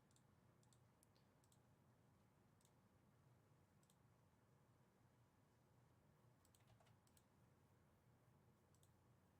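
Near silence with faint, scattered light clicks, a few at a time, with a small cluster about seven seconds in.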